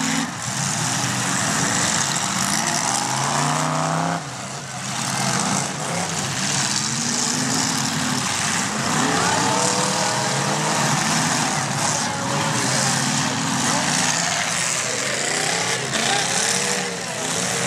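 Demolition derby cars' engines running loudly and revving, their pitch rising and falling again and again over a steady din.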